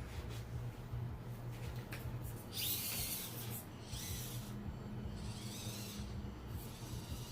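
Axial SCX24 Deadbolt micro RC crawler's electric motor and gears whining in a few short throttle bursts as it tries to climb a rock, the loudest about three seconds in.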